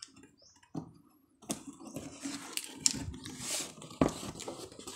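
Cardboard box being opened by hand: the flaps and lid scrape and rustle, with a few sharp knocks. It is mostly quiet for the first second and a half.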